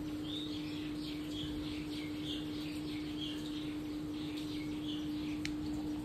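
Samsung 8 kg top-load fully automatic washing machine in its spin cycle, the drum turning below full speed with a steady hum. Bird chirps come and go over it, and a single sharp click sounds near the end.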